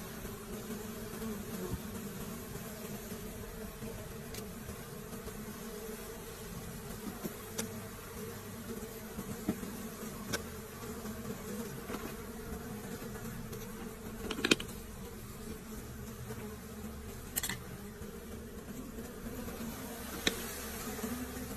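A swarm of bees buzzing steadily around their hive. A few sharp clicks or snaps break in, the loudest about two-thirds of the way through.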